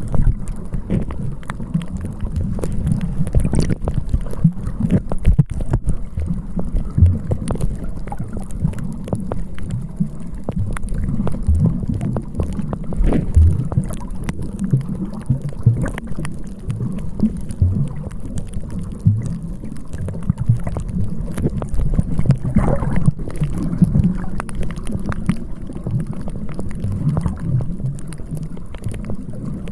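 Wind buffeting the microphone on a seashore: a constant, gusty low rumble with scattered crackles, which may hide surf beneath it.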